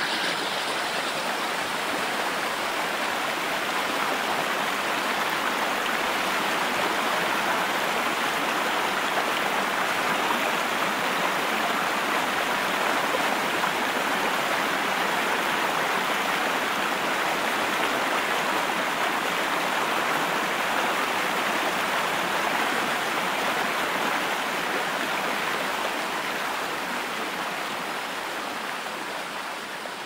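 Holme Force, a small woodland waterfall, with water rushing and splashing steadily down over rocks. The rush fades out near the end.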